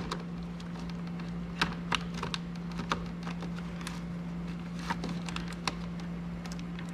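Plastic electrical connectors being lined up and handled by hand: scattered light clicks and taps, a few at a time and irregular, over a steady low hum.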